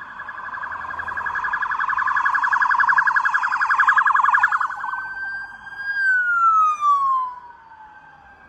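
Police cruiser's electronic siren sounding as it passes close by: a rapid warble that grows louder for about four seconds, then changes to a steady tone that slides down and winds off. Another siren sounds fainter near the end.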